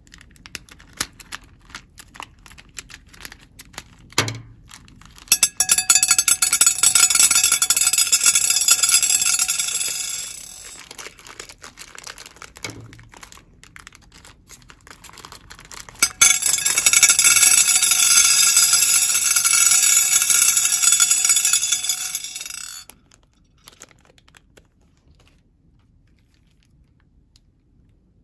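Small red beads pouring from a plastic bag into a glass bowl: two long, dense rattling pours of several seconds each. Between the pours there are softer crinkles of the bag and a few clicks of single beads.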